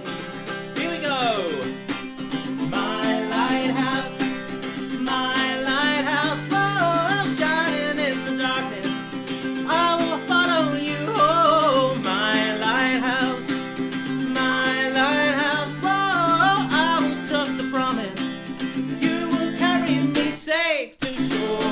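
A man singing a pop-worship song over his own steadily strummed acoustic guitar. The sound drops out for a moment near the end.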